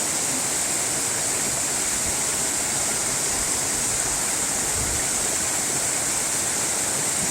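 Steady rushing water, an even hiss-heavy wash with no changes or distinct events.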